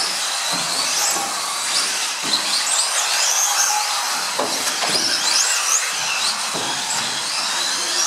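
Several RC model cars racing, their motors whining high and gliding up and down in pitch as they speed up and slow down, over a steady rushing noise.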